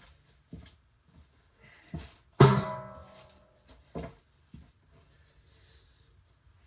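Objects being handled: scattered knocks and clicks, with one loud ringing clang about two and a half seconds in that fades over about a second.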